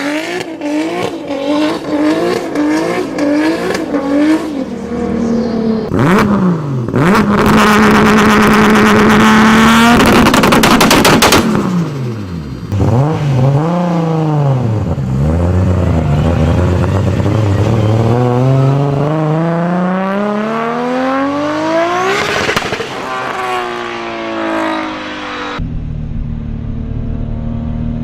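Toyota 2JZ-GTE three-litre twin-turbo straight-six engines in a string of short clips with abrupt cuts between them. First quick rev blips, then a high rev held steady, then a long pull that climbs steadily in pitch and falls away, and a steadier lower running near the end.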